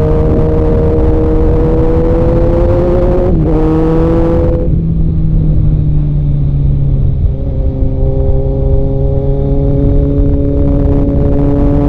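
Kawasaki Z900's inline-four engine running loudly, its note climbing slowly and steadily. The note steps and breaks about three seconds in and changes again around seven seconds in.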